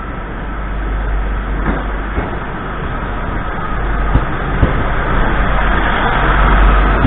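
Northern diesel multiple unit running into the platform alongside, its engine and wheels on the rails growing louder, with a couple of sharp wheel clicks about four seconds in and a high tone building near the end.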